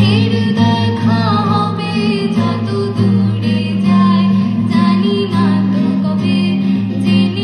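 A woman singing a song, accompanied by two acoustic guitars.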